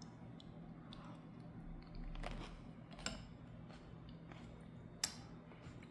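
Faint scattered clicks and taps of small kitchen utensils and containers being handled, with one sharper click about five seconds in, over a steady low hum.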